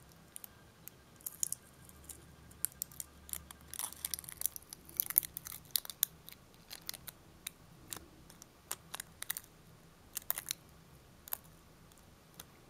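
Plastic nail-art transfer foil being peeled off long fingernails, making faint, irregular crinkles and clicks as the film lifts away.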